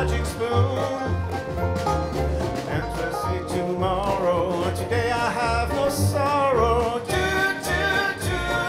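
Live acoustic country-rock band playing: strummed acoustic guitar and mandolin over a steady snare-drum beat, with a voice singing along.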